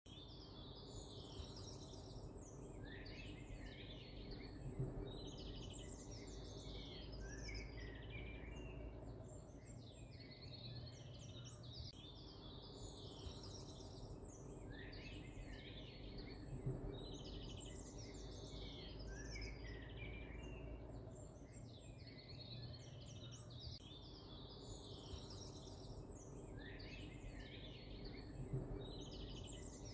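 Songbirds chirping and twittering over a faint low hum, with a soft thump about every twelve seconds. The same stretch of birdsong repeats identically about every twelve seconds, as a looped ambience track.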